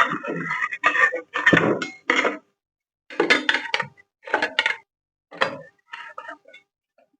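Hard objects being handled and set down: a run of irregular clanks, knocks and rattles, some with a brief metallic ring, from the circular saw and its parts as they are unpacked and looked over.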